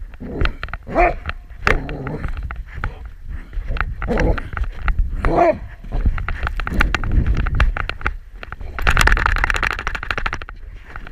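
Thumping and rubbing of a camera strapped to a walking animal's back, with two short pitched calls, one about a second in and one about five seconds in, and a harsh rustling near the end.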